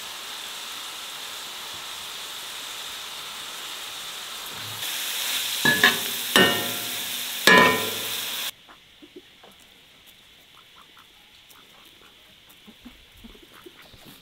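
Sliced onions sizzling in a black iron pan, stirred with a metal ladle that clinks and scrapes against the pan several times about halfway through. The sizzle then cuts off suddenly to a quiet background with faint ticks.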